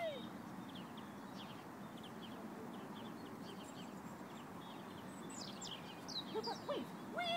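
Small birds chirping in the background: many short, quick, falling chirps over faint steady background noise.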